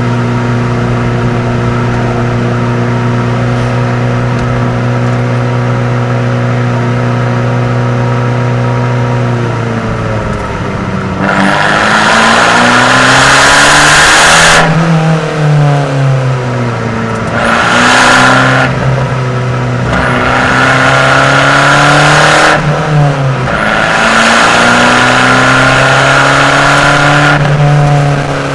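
Abarth 595's turbocharged four-cylinder engine through a Record Monza exhaust. It holds a steady note for about ten seconds, then revs up hard several times, the pitch climbing and briefly falling between each pull as the car accelerates through the gears.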